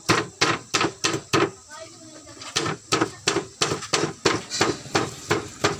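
A knife chopping on a cutting board: sharp, even strokes about three a second, with a short pause about halfway.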